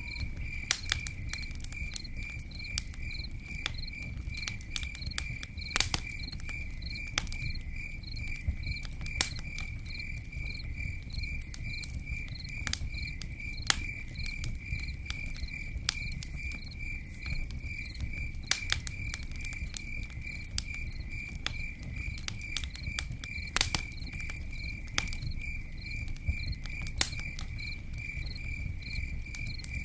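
Campfire crackling, with irregular sharp pops over a low rumble. Throughout, a cricket chirps in a steady, even rhythm of a few high pulses a second.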